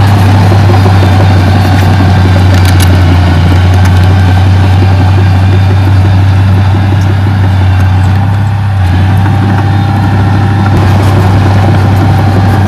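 Heavy diesel engine of earthmoving machinery running steadily with a loud, constant low hum, easing slightly for a moment about eight seconds in.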